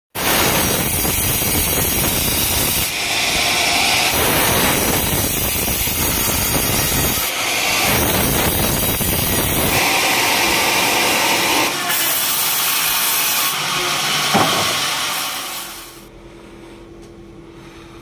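Large band sawmill blade cutting lengthwise through a coconut palm (glugu) log: a loud, steady rushing noise that shifts abruptly several times. About 16 seconds in it drops away to a much quieter background with a faint low hum.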